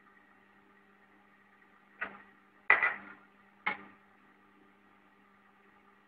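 Friction tester's drive motor running with a faint steady hum while it moves the plane slowly along the lead screw. Three sharp knocks come about two, two and three-quarter, and three and a half seconds in; the middle one is the loudest.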